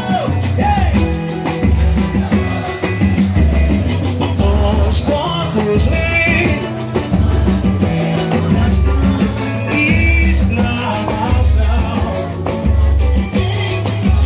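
Live pagode band playing: nylon-string guitar and percussion over a deep bass beat about once a second, with singing in places.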